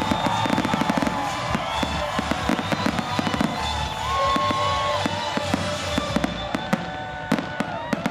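Aerial fireworks shells bursting in a rapid barrage: many sharp bangs and crackles in quick succession.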